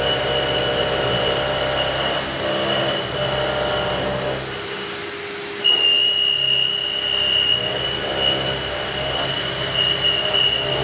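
CNC milling machine cutting a metal mould block with an end mill: a steady high-pitched whine from the cut over the hum of the running spindle. The sound drops off about four and a half seconds in and returns abruptly near six seconds, the whine louder.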